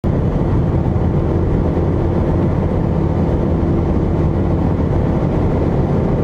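Steady road noise of a car driving at highway speed, heard from inside the cabin: a low rumble of tyres and engine.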